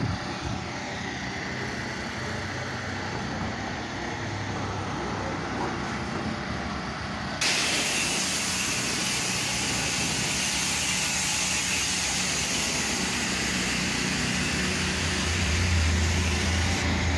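Pressure washer running, its spray hissing steadily over a low motor hum. About seven seconds in the hiss suddenly gets louder and brighter, and the hum swells near the end.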